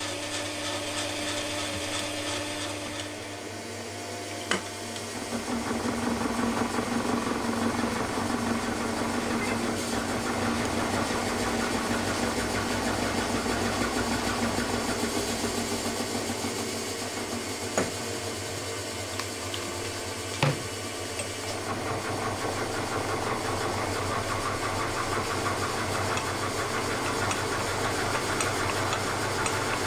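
Vertical milling machine running with a large cutter machining an aluminium billet under hand feed, a steady cutting and motor sound with a rattly edge. A few sharp clicks stand out, one about four seconds in and two more later on.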